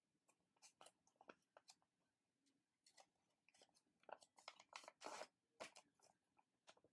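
Faint crinkling and rustling of a 15 cm square of origami paper being folded and creased by hand: a string of short crackles, with a longer rustle about five seconds in.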